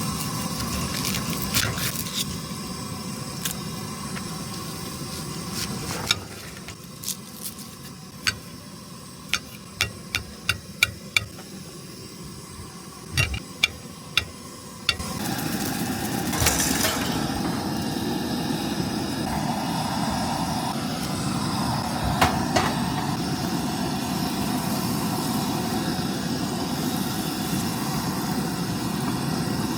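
Clicks and knocks of cookware and utensils being handled, over a steady low rumbling noise that drops away in a quieter middle stretch and then comes back.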